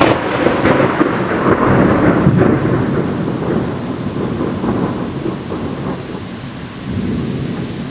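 Thunder: a sudden loud clap at the start that rolls on as a rumble and slowly fades over several seconds, with a second, weaker rumble near the end, over the hiss of rain.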